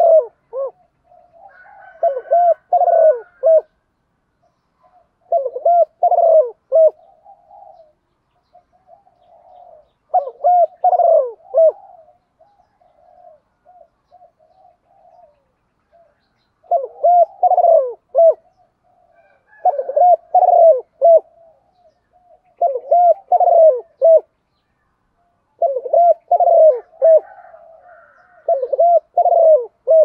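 Spotted dove cooing: short phrases of low, repeated coos, each a second or two long, come again and again with pauses of a few seconds between them.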